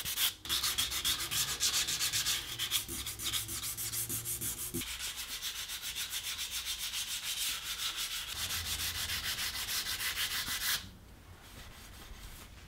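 Fine 320-grit sandpaper worked by hand over a shellac-coated wooden table leg, with fast back-and-forth rasping strokes. This cuts back the shellac between coats to make it ultra smooth. The strokes stop suddenly near the end.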